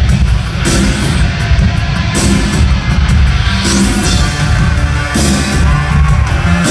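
Loud live electro-industrial music from the stage: a heavy, pounding bass with noisy synth swells that rise about every one and a half seconds.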